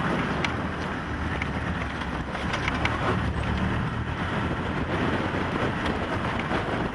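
A vehicle driving along a rough track: a steady low rumble and rushing noise with small rattles and knocks throughout, and wind on the microphone.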